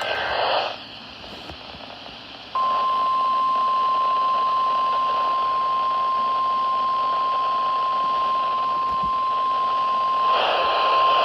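NOAA Weather Radio 1050 Hz warning alert tone played through a weather radio receiver: a single steady high tone that starts about two and a half seconds in and holds level, marking the start of the weekly test broadcast. A short burst of radio noise comes right at the start, and another overlaps the tone near the end.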